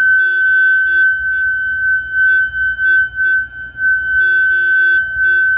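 Steady high electronic whine with a second tone just beneath it, broken by irregular short blips and crackly buzzes. This is electromagnetic interference picked up by a listening circuit from a nearby transmitter and played through its speaker.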